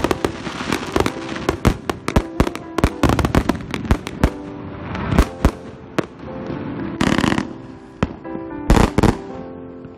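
A 70-shot aerial fireworks package firing in quick succession: sharp bangs and pops of shots and bursting shells several times a second, with two dense crackling bursts about seven and nine seconds in, thinning out near the end.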